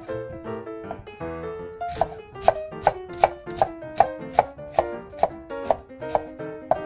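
Kitchen knife slicing an onion on a wooden cutting board: steady chops, about two to three a second, starting about two seconds in. Background music plays throughout.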